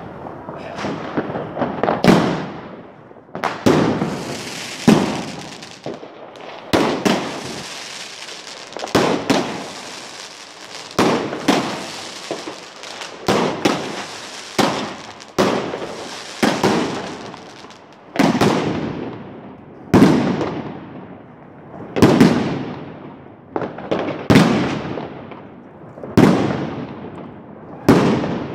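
Aerial fireworks going off in a steady series, a sharp bang about every one to two seconds, each trailing off in a rolling echo. Through the middle stretch a steady high hiss hangs between the bangs.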